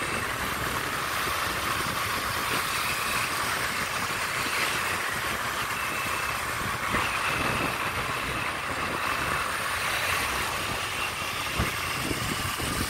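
Motorcycle engines running with steady road noise while the bikes ride along together.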